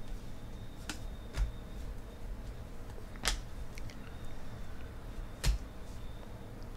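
Stack of baseball trading cards being handled and flipped through, with four short clicks as cards are slid and snapped against one another, over a low steady hum.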